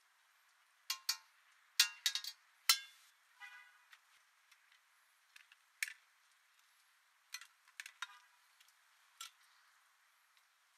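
Metal serving spoon clinking and scraping against a ceramic plate as food is spooned onto it: a run of sharp, ringing clinks about one to three seconds in, then scattered single clinks.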